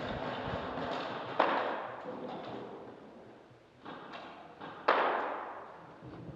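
Two sudden thuds about three and a half seconds apart, each trailing off in a short fading rush.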